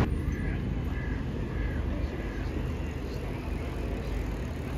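Street ambience: a steady low rumble of city traffic.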